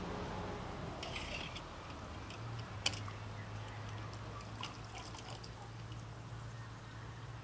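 Metal ladle scooping through broth in a steel stockpot: liquid dripping and splashing back into the pot as meat is lifted out, with a single sharp metal clink of the ladle against the pot about three seconds in.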